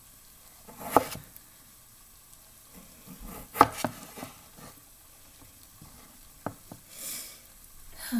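Scattered knocks and taps of kitchen utensils during food preparation: one about a second in, a sharper one about three and a half seconds in, two light ticks a little later, then a brief hiss about seven seconds in.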